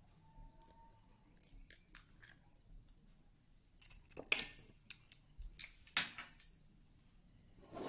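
A few short, sharp clicks and knocks of a spoon against plastic bowls as ingredients are added to a plastic mixing bowl, the loudest about four seconds in and another about six seconds in.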